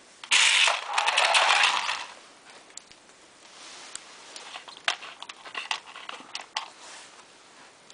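Small plastic wind-up snail toy's clockwork running with a loud whirring rattle for about a second and a half as it goes across a hard floor. Scattered light plastic clicks and taps follow as the toy is handled.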